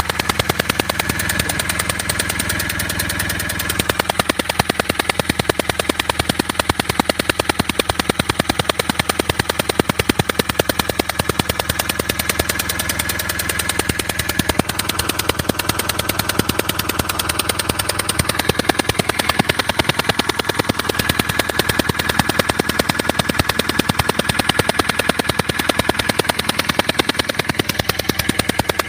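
Common-rail diesel engine idling with a rapid, even ticking, the sound of compression leaking past a bad injector seal.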